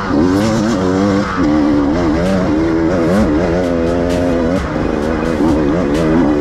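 Enduro dirt bike engine revving up and down as the rider works the throttle, holding a steadier note for about a second in the middle.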